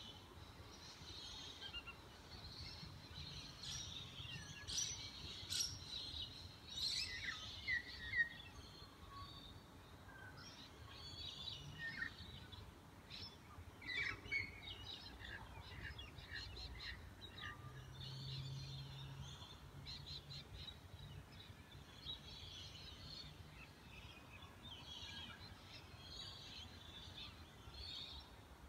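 Dawn chorus of several birds chirping and calling, with quick sharp calls and short downward-sweeping notes, busiest in the first third. A faint low steady hum runs underneath, a little louder in the middle.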